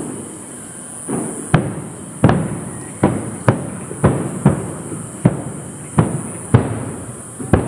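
Aerial firework shells bursting in quick succession, heard from some distance. About ten sharp booms start about a second in and come every half-second to second, each trailing off in a rolling echo.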